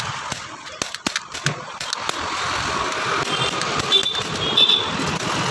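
Street traffic noise, with a few sharp clicks in the first two seconds and short high tones repeating about three to five seconds in.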